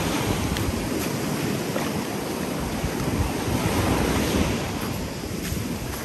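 Sea waves washing onto the shore, with a wave surging louder about four seconds in and drawing back. Wind buffets the microphone with a low rumble throughout.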